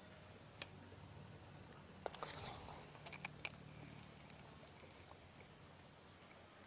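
Quiet outdoor background with a steady low hum and a thin steady high tone; a sharp click about half a second in, then a short burst of rustling and several clicks about two to three and a half seconds in.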